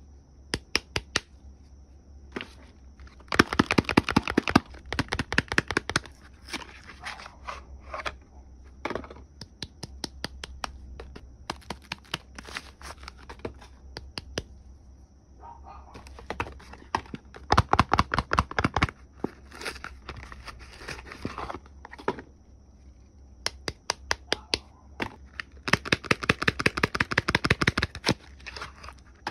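Soap wrapping being opened by hand, crinkling and tearing in rapid crackles. The crackles come in three louder bursts separated by quieter handling.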